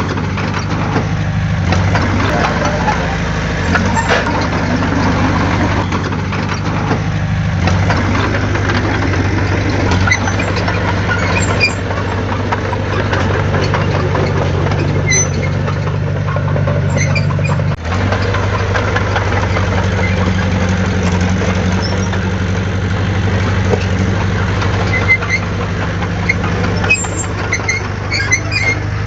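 Heavy diesel engine of an earthmoving machine running steadily, its pitch shifting slightly a couple of times, with a brief dip in level about eighteen seconds in. Faint high squeaks and clinks come and go over it, more of them near the end.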